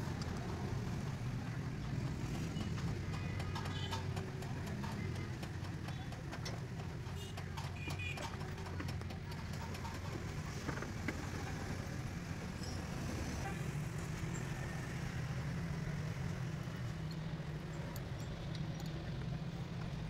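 An engine running steadily with a low, even hum, with a run of light clicks and knocks from about six to ten seconds in.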